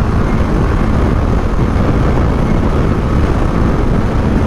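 Steady rush of wind over the rider's microphone on a TVS Apache RR310 motorcycle at highway speed, with the bike's engine and road noise mixed in; loud and unbroken.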